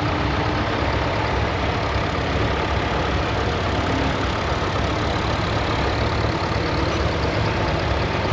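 Engine of a 1959 vintage tractor running steadily at low revs.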